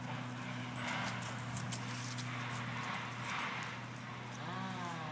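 Dogs sniffing and panting as they meet nose to nose, in breathy surges, with small clicks over a steady low hum.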